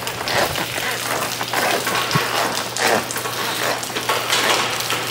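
Waste water backed up behind a clog pouring out of an opened cleanout on a sanitary stack and splattering onto a wet concrete floor, a steady splashing patter.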